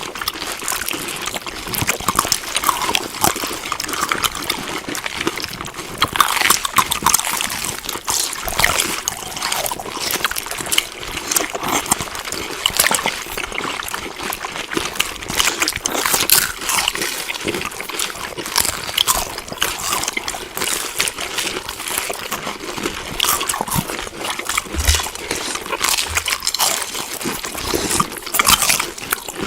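Close-up chewing of food: a continuous run of small, irregular wet clicks and smacks.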